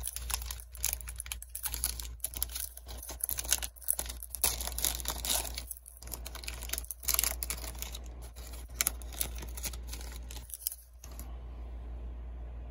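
Foil wrapper of a trading-card pack being torn open and crinkled by hand: a run of irregular crackles and rips that stops about eleven seconds in, leaving a steady low hum.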